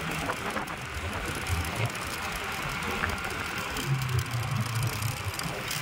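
A motorcycle riding along the road: steady engine and road noise mixed with wind.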